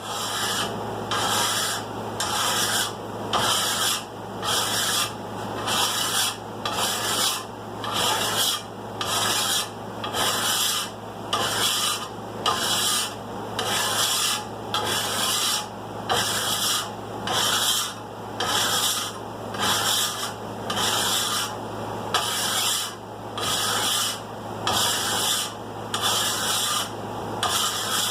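Double-cut hand file filing the bevels of a forged steel sword blade in steady, even strokes, a little more than one a second, truing up the bevel lines.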